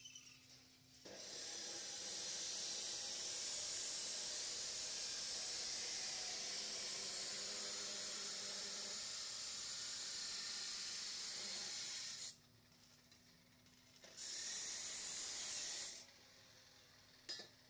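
Stick (arc) welding on steel pipe: the electrode's arc hissing and crackling steadily for about eleven seconds, then breaking off, and a second, shorter run of about two seconds near the end. A faint steady hum lies underneath.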